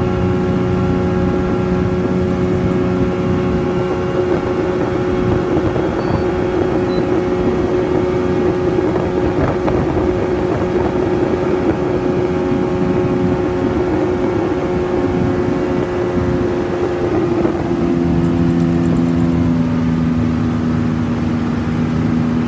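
Motorboat engine running steadily under way, with wind and water noise. About eighteen seconds in, its pitch drops as it is throttled back.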